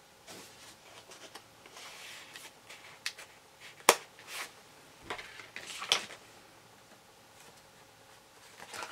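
Paper card being handled and shifted on a wooden tabletop: light rustling and scraping, with a sharp click about four seconds in and another near six seconds.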